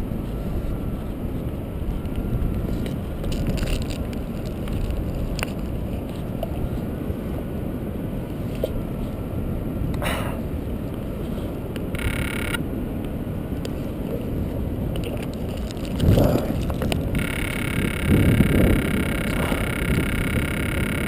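Steady wind rush buffeting the microphone during paraglider flight, with short louder rustling and crackling patches about ten seconds in, at twelve seconds, and near the end.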